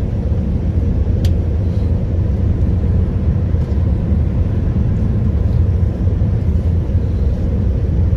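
Steady, deep rumble of an airliner's jet engines and rushing air, heard from inside the passenger cabin in flight.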